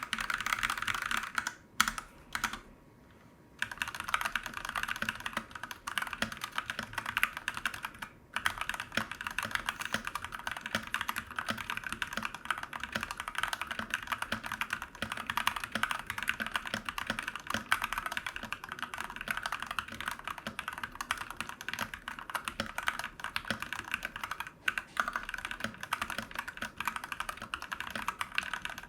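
Rexus Daxa M64 Classic mechanical keyboard being typed on continuously in quick keystrokes, with short pauses about two seconds in and again around eight seconds in. It is a tray-mount board with a steel plate and two foam layers added to cut hollow sound.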